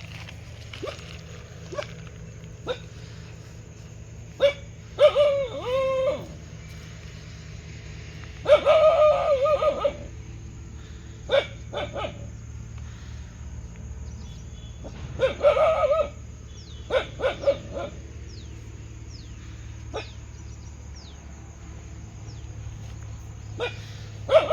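Dog barking: short sharp single barks scattered through, and several longer barks of about a second each with a wavering pitch, over a steady low hum.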